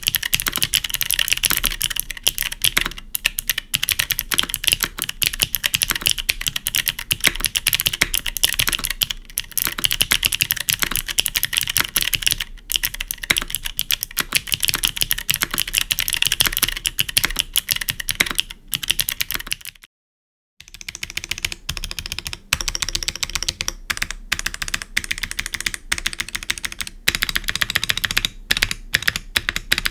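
Continuous fast typing on a Neo75 CU gasket-mount mechanical keyboard with an aluminium plate, no foam and GMK keycaps, fitted with clicky switches. The switches are Invokeys Pea Flower until a brief silent break about two-thirds of the way in, then modded NK Cream Clicky.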